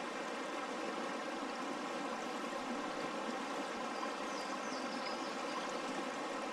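River water rushing steadily over fast riffles, an even unbroken wash of sound. A faint, brief high chirp comes about four and a half seconds in.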